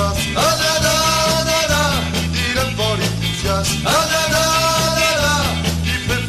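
Rough, garage-recorded rock song with French vocals: a steady bass and drum beat under two long held sung notes, one a little after the start and one about four seconds in.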